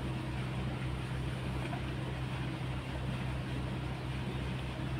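Steady low motor hum, unchanging in pitch and level.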